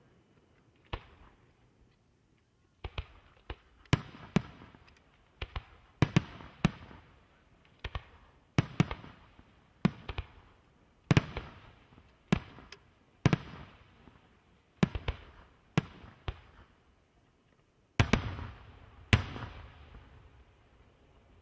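Aerial firework shells bursting in a rapid, irregular series of sharp bangs, one to two a second, each trailing off in a short echoing tail, with the loudest bangs near the end.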